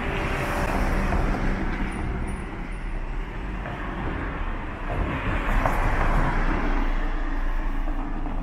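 Road traffic: motor vehicles passing close by on a city street, the rushing engine and tyre noise swelling twice as they go past.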